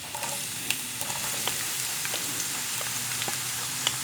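Sliced onions frying in hot coconut oil in a pan: a steady sizzle with scattered light clicks and pops.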